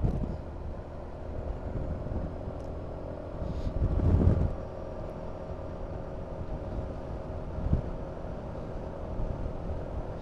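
Honda Forza 350 scooter's single-cylinder engine running steadily while riding, under a low rumble of wind and road noise, with a louder rumble about four seconds in.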